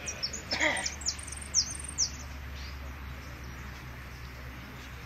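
Caged jilguero (finch) singing a quick burst of sharp, high chirps and short downward-sweeping notes during the first two seconds, then falling quiet under a low steady rumble.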